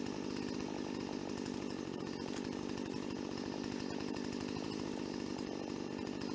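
Chainsaw engine running at a steady speed, a fast, even buzz with no revving.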